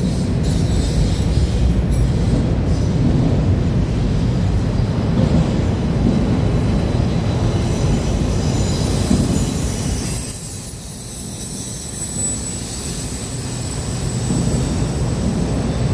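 Freight train cars rolling past with a steady low rumble and thin, high wheel squeal; the sound dips briefly about two-thirds of the way through, then builds again.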